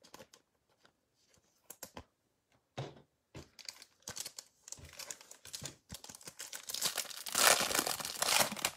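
Foil wrapper of a Topps Chrome baseball card pack being torn open and crumpled. A few faint clicks of cards being handled come first; the crinkling builds from about four seconds in and is loudest near the end.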